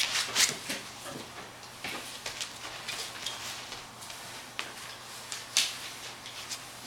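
A Golden Retriever/Labrador mix puppy moving about on couch cushions and a blanket: scattered soft rustles and light taps of its paws and body against the fabric.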